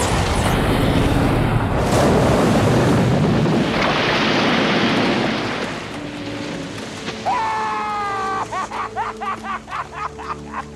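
Film explosion of the air tank in the shark's mouth: a loud rush of blasting water spray and debris splashing back onto the sea, dying away after about six seconds. Then gulls call repeatedly over held music notes.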